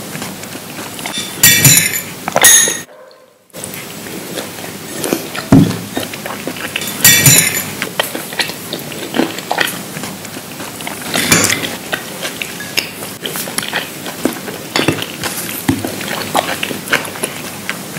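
Eating utensils clinking and scraping against dishes in close-up, mixed with crunchy bites and chewing of the meal. The sound cuts out briefly about three seconds in.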